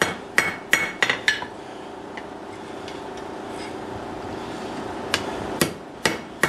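Hand hammer striking red-hot steel on a blacksmith's anvil while drawing a fork tine down to a cone: a quick run of four ringing blows, a pause of about three and a half seconds with only a steady low hum, then another run of blows near the end.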